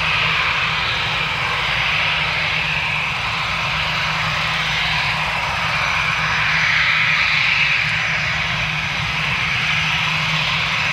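Airbus A319's twin jet engines running at low power as the airliner taxis slowly: a steady engine whine over a low hum, swelling slightly about seven seconds in.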